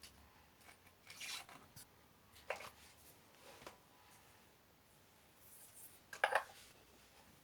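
Slime being mixed and pressed by hand: faint, sticky crackles and squishes coming at irregular intervals, the loudest a little after six seconds in.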